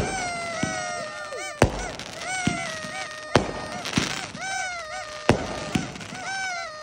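Aerial fireworks going off, a sharp bang about every second as shells and rockets burst. Over the bangs come repeated short honking calls and a longer tone that slides slightly downward.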